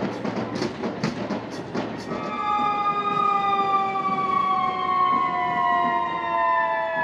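Drums beating in a street procession. About two seconds in, a fire truck's siren starts: one long wail that slowly falls in pitch.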